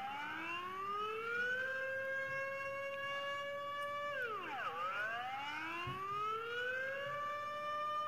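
Outdoor warning siren playing a Dutch air-raid signal as a test, sounding a chord of several tones. The chord holds steady, drops sharply in pitch about four seconds in, then climbs back up over about two seconds and holds again.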